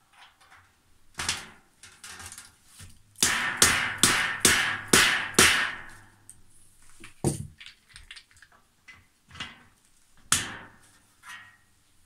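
Sharp knocks on a metal trolley frame as a plastic caster wheel is fitted into the end of its hollow steel leg: a run of about six knocks roughly half a second apart in the middle, with single knocks before and after.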